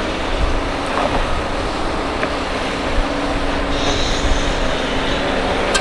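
Heavy diesel machinery running steadily: an excavator working while loading dump trucks, with a couple of sharp knocks.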